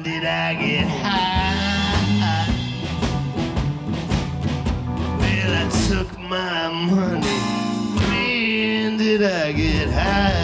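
Live blues-rock band playing: guitars, drums and keys, with a lead line that slides up and down in pitch over the beat.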